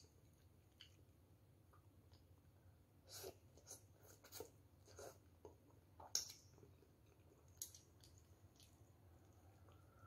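Quiet noodle eating: a few short slurps and mouth smacks as noodles are sucked in and chewed, spread between about three and eight seconds in, the loudest about six seconds in.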